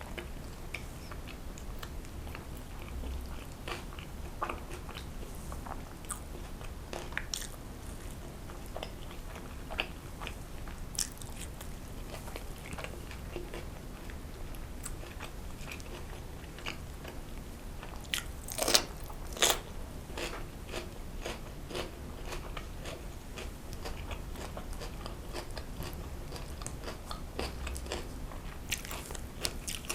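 Close-miked eating: a person biting and chewing food, with many small wet clicks and crunches, and two louder sharp clicks about two-thirds of the way through. A faint low hum runs underneath.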